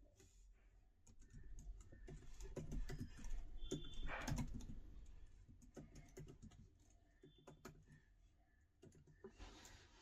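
Typing on a MacBook Pro 14-inch laptop keyboard: quick, light key clicks, busiest in the first half, then thinning out to a few scattered keystrokes.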